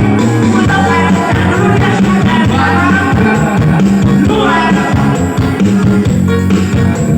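A song with singing and heavy bass played loud through a sound system under test.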